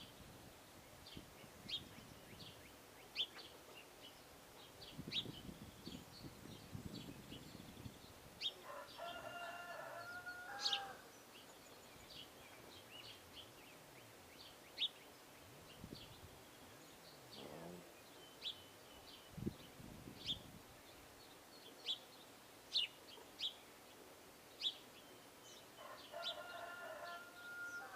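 Birds calling: many short, high chirps every second or so, and twice a longer call of about two seconds, about a third of the way in and again near the end.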